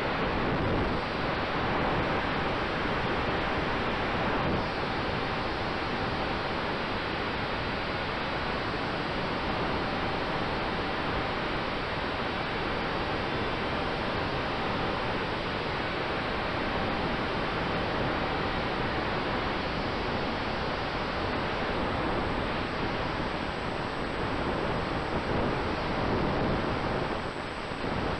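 Steady rushing airflow noise on the onboard camera's microphone of a large-scale model biplane in flight, with a faint steady hum underneath.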